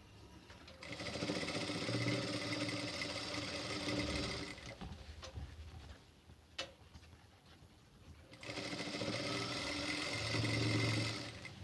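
Sewing machine stitching piping onto a blouse's neck lining, in two runs of about four and three seconds with a pause between them. A single sharp click comes in the pause.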